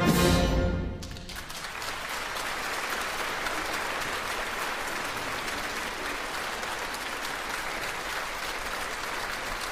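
An orchestra's closing chord rings and dies away within about a second, then a theatre audience applauds steadily.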